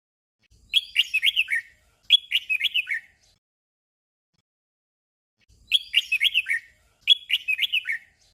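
Red-whiskered bulbul singing its short "doubled" song: a quick phrase of whistled notes, repeated at once, so each song is two back-to-back phrases about a second each. The song comes twice, about five seconds apart.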